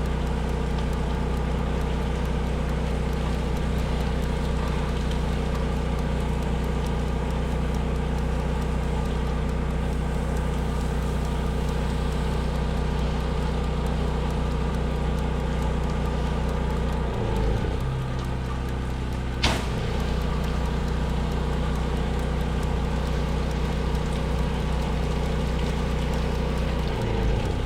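An engine running steadily with a low hum. Its tone changes about two-thirds of the way through and changes back near the end, and there is one sharp click shortly after the first change.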